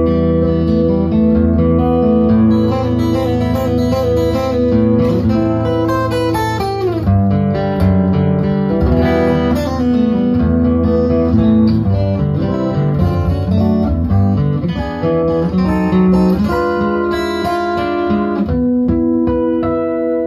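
Acoustic guitar music, with chords that change every second or so.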